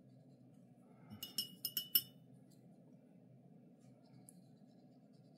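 About five quick, ringing clinks about a second in: a paintbrush knocking against a glass water jar while being rinsed between colours, over a faint steady room hum.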